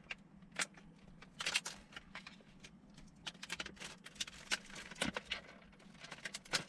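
Thin clear plastic clamshell container and plastic wrapping crinkling and clicking in irregular bursts as they are prised open and handled, over a faint steady hum.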